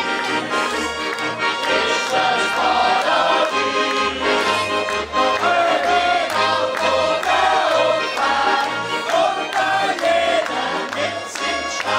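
Live folk music: a button accordion playing chords and melody over a steady plucked upright double bass line, about two bass notes a second, with the accordionist singing along.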